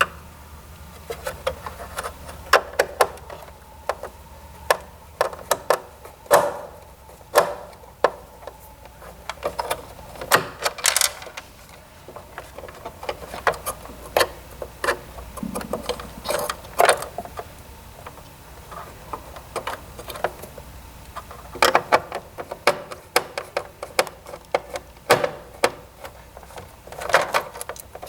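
Phillips screwdriver backing out the screws that hold a circuit board to its tray, with irregular clicks and taps as the bit, the screws and the parts are handled.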